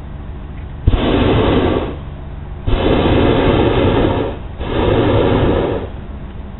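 Hot air balloon's propane burner firing in three long blasts with short gaps between them, the middle one the longest, as the balloon lifts off.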